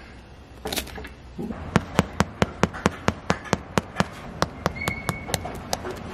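Fingertips tapping on the crust of a freshly baked no-knead bread loaf, a quick even run of sharp taps at about four or five a second, a check that the loaf is baked through.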